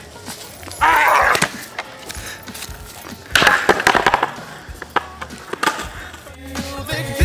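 Longboard wheels rolling on pavement, with two loud, gritty slides about two and a half seconds apart, each lasting well under a second. Music comes in near the end.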